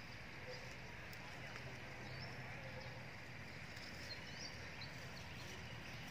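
Outdoor background: a steady high hiss with a low hum beneath, and a few faint short high chirps now and then.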